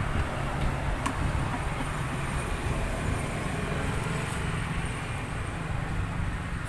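Steady low rumble of road traffic and street noise, with a single light click about a second in.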